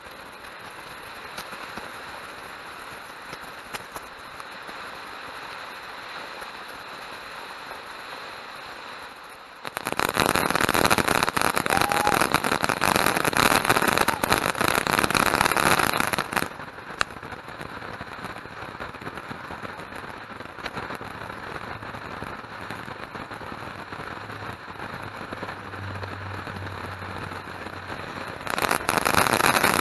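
Close-up fireworks: a ground fountain spraying with a steady hiss, then a 100-shot Saturn missile battery firing a rapid stream of crackling shots. The shots come in loudest for about six seconds about ten seconds in, ease off to a lower crackle, and turn loud again near the end.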